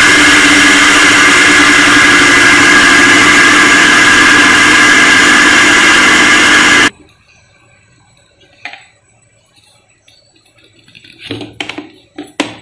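Electric mixer grinder running at full speed, grinding rice into flour; its motor runs with a steady whine and cuts off suddenly about seven seconds in. A few light clinks follow near the end as the steel jar is handled.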